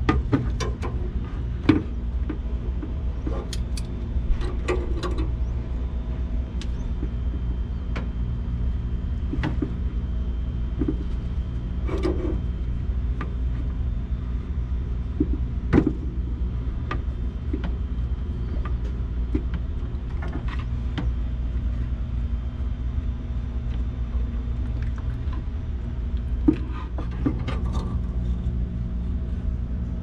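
Pliers clinking and knocking on a water strainer's metal fittings as it is worked loose, a dozen or so sharp knocks at uneven intervals, over a steady low machine hum.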